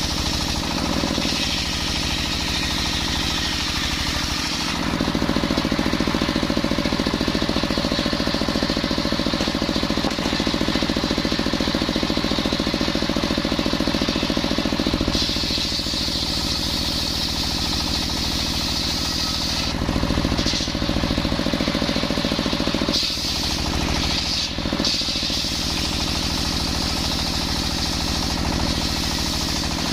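Circular saw machine cutting coconut timber into beams, running continuously with a rapid pulsing drive note. Its pitch and loudness shift several times as the blade works through the wood.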